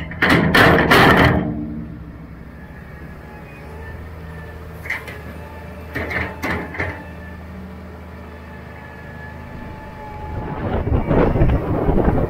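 Loader tractor engine running steadily, with loud clanks and rattles from the loader bucket in the first second or so and a few more knocks a few seconds later. Near the end a louder rough rumbling and rattling builds.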